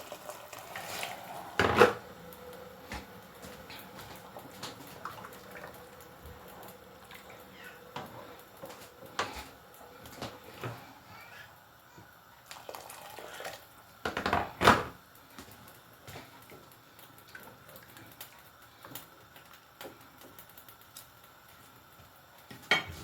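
Boiling water being poured into a pot of rice on the hob, with scattered clinks and knocks of utensils against the pot. Two sharp knocks stand out, one about two seconds in and a louder one about halfway through.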